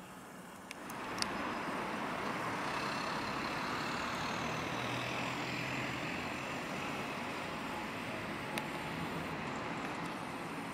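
A road vehicle passing, its noise swelling about a second in and slowly fading, with a few sharp clicks, the loudest just after the swell begins.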